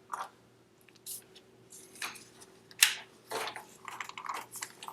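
Scattered light clicks, clinks and rustles of hands working small metal parts of an ATV's oil filter housing, the sharpest click about three seconds in, over a faint steady hum.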